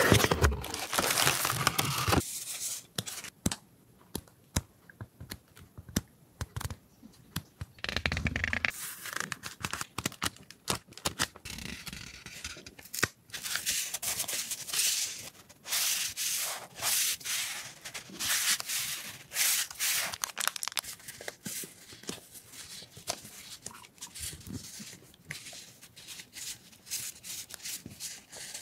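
Translucent sticker sheets and paper stickers rustling, sliding and scraping against each other as they are handled and fanned out, in irregular short rustles. For a few seconds near the start there are only light ticks and taps.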